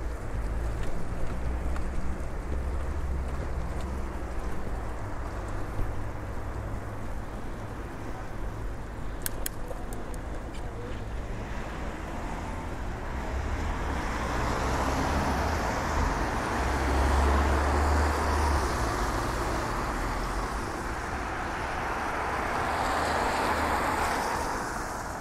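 Road traffic on a wet street: passing cars' tyres hiss on the wet asphalt, swelling in the second half and loudest twice near the end. Before that there is a low wind rumble on the microphone from the moving bicycle.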